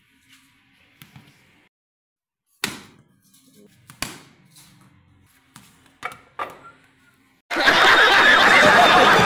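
A few sharp knocks of a cricket bat striking a ball and the ball hitting a hard tiled floor, then, about three-quarters of the way in, a sudden loud burst of studio-audience laughter and shouting.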